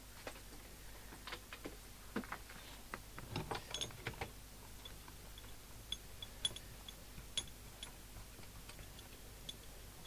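Faint, scattered clicks and light knocks of bench test equipment being handled and set up, over a faint steady low hum.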